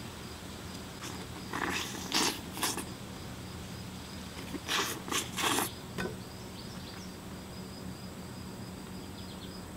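A person eating a ripe mayapple whole, seeds and all: a few short bursts of mouth noise in two clusters about three seconds apart, over steady chirping of crickets.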